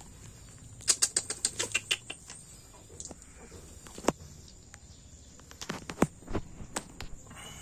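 Puppies scrambling over dry straw and litter: a quick run of about ten sharp crackling clicks about a second in, then scattered single clicks and rustles.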